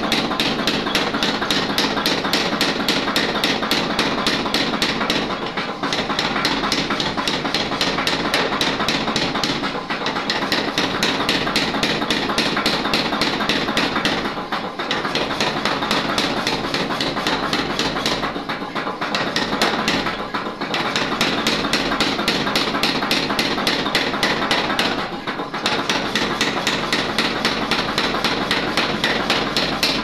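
Mechanical power hammer pounding a red-hot iron bar held in tongs, a fast steady run of heavy blows, several a second, that breaks off briefly about five times.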